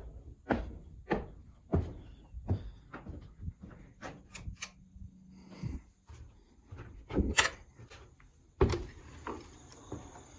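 A barn's top door being opened: a series of wooden knocks and clunks, then two louder bangs, one about seven seconds in and one between eight and nine seconds in.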